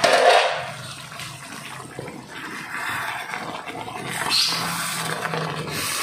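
Chicken pieces simmering in a galangal spice broth, the liquid bubbling and spattering unevenly, with a faint low hum underneath.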